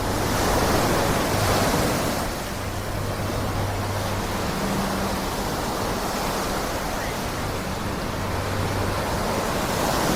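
Surf on the beach: a wave breaks and washes in near the start and another near the end, with a steady wash of water between. A faint low hum comes and goes underneath.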